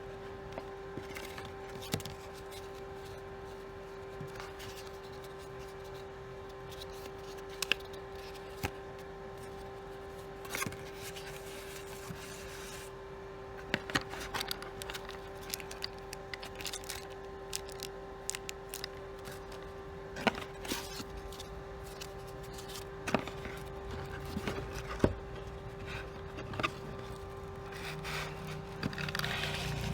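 Hands unboxing a camera lens: scattered clicks, rubs and scrapes of the box and packaging being handled, over a steady hum.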